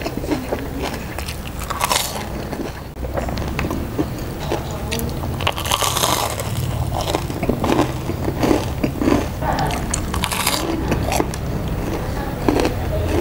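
Close-miked biting and chewing of crispy deep-fried tofu (tahu garing): a steady run of crackling crunches from the brittle batter crust, with the loudest bites about two, six and ten seconds in.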